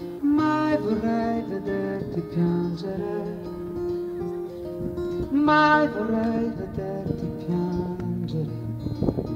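Acoustic guitar played live: chords ringing on, with strong strums just after the start and again about halfway through.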